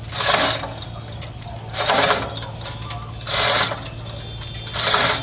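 Manual chain hoist being hauled by hand to lift a log: the metal chain rattles and clinks through the hoist in a burst with each pull, four pulls about every one and a half seconds.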